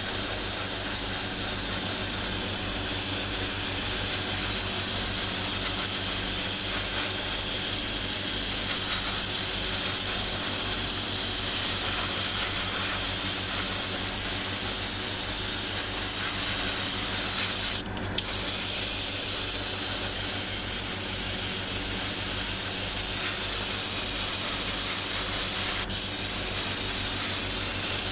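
Airbrush spraying paint in a long, steady hiss, with a brief stop about eighteen seconds in when the trigger is released. A steady low hum from the air compressor runs underneath.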